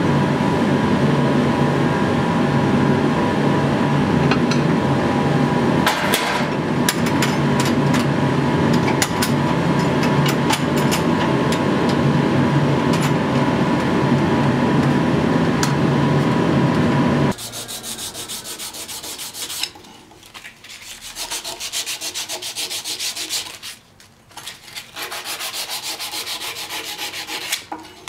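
A loud, steady mechanical drone with a low hum and a few held tones, cutting off suddenly about two-thirds of the way through. Then rhythmic rubbing strokes of a steel knife blade being hand-worked in a bench vise, with short pauses between runs of strokes.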